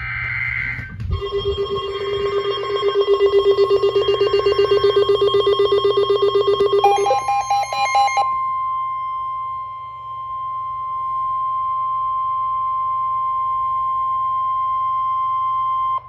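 Weather alert: a Midland weather radio's electronic alarm beeps in a fast, steady pulse for about six seconds over the steady Emergency Alert System warning tone. After a brief garbled burst about seven seconds in, the alarm stops and the plain alert tone carries on steadily.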